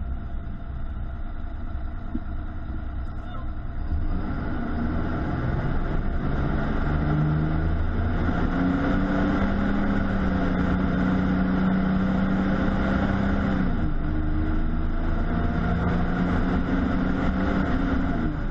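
Fire truck's diesel engine pulling away and accelerating, its note stepping up in pitch and holding steady, then dropping about two-thirds of the way through and building again, over steady road noise.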